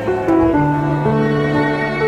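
Background music: a slow melody of long held notes that step from one pitch to the next.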